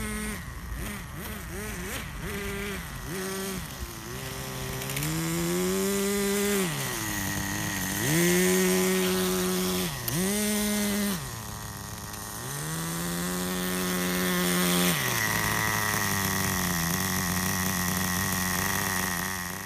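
Small two-stroke nitro engine of a 20-year-old Kyosho RC truck, revved in repeated throttle bursts. Its pitch climbs and drops back several times, including a few longer runs at high revs, then it settles into a steady idle for the last few seconds.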